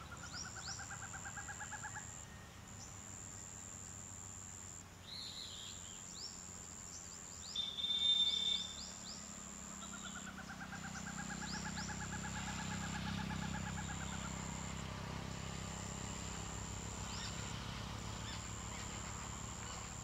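Forest birds calling over a steady high insect buzz that breaks off every few seconds. A rapid pulsing trill sounds near the start and again for several seconds midway, with short high chirps scattered through and a brief louder call about eight seconds in. A faint low rumble rises in the second half.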